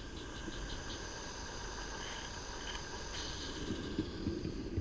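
Roundhouse 'Billy' live-steam garden-railway locomotive running past: a fast, even chuff of steam exhaust that fades away, then a few clicks of wheels over the track near the end.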